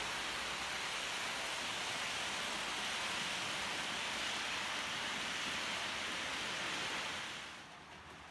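H0 scale Märklin model train of passenger coaches rolling along the track, its wheels making a steady rushing noise on the rails; the noise drops away a little before the end.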